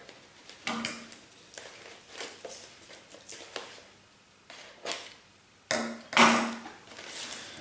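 Crepe paper and a stiff drawing-paper cone rustling and crinkling as they are handled, in irregular short bursts with light knocks. The longest and loudest rustle comes about six seconds in.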